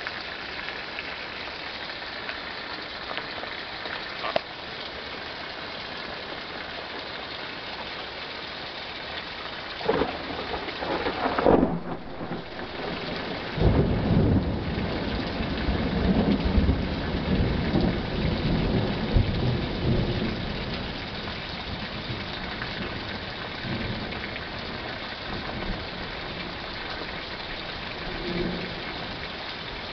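Steady rain throughout, with a thunderclap about ten seconds in: a sharp crackle, then a long low rumble that rolls on for several seconds and fades away.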